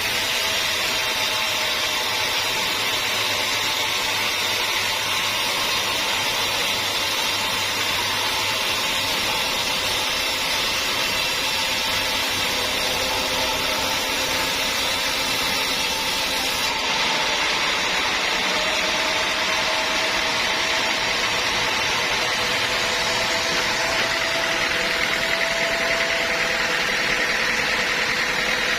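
Sawmill saw running steadily as it cuts a teak log: a constant machine noise with steady humming tones, the sound shifting abruptly about seventeen seconds in.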